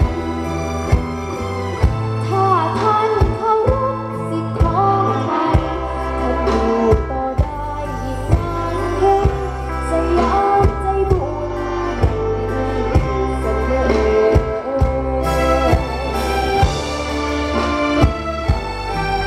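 Thai luk thung band music through a PA system: a singer with wavering held notes over a sustained bass line and a regular drum beat.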